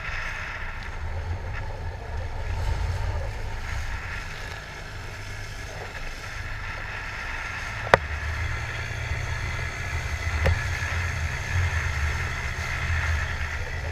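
Small dinghy under outboard power crossing choppy sea: a steady low motor drone under wind on the microphone and water rushing past the hull. A sharp knock about eight seconds in, the loudest moment, and a smaller one a couple of seconds later.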